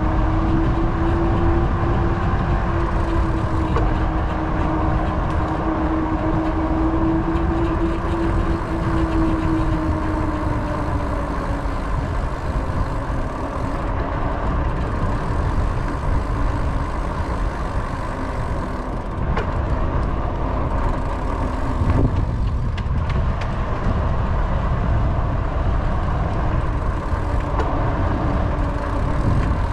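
Wind buffeting the microphone of a moving action camera, a steady low rumble, with a faint steady hum over the first ten seconds or so that then fades.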